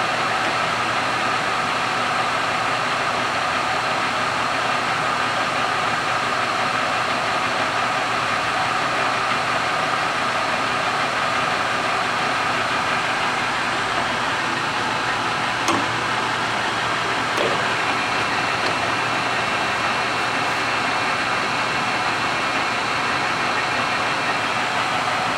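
Kingston HD-2690 engine lathe running under its own power, its 15 HP motor and geared headstock turning the spindle with a steady mechanical hum and a few steady whining tones. Two faint clicks about two-thirds of the way through.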